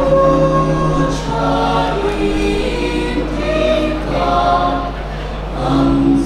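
Mixed male and female a cappella choir singing unaccompanied in harmony through stage microphones, with held chords that change about every second, over a steady low hum.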